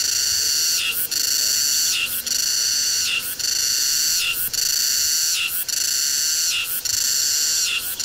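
Cicada singing: a loud, high buzzing call that repeats evenly about once a second, each phrase ending in a short downward slide before the next.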